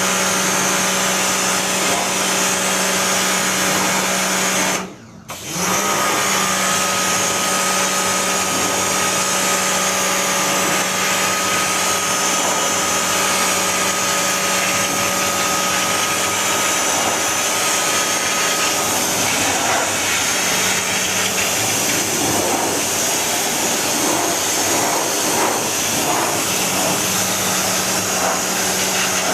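Steady whirring and hiss of a motor-driven machine with a low hum, cutting out for a moment about five seconds in; a thin whine joins it for about the next thirteen seconds.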